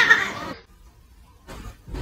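A cat's angry vocalization as it squares up to another cat, rough and strong, cutting off about half a second in. A faint knock follows near the end.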